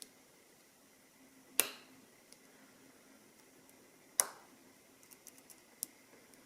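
Sharp metallic clicks from lock picks working the sliders of a Mul-T-Lock MT5+ high-security cylinder: two distinct clicks about two and a half seconds apart, then a short run of faint ticks.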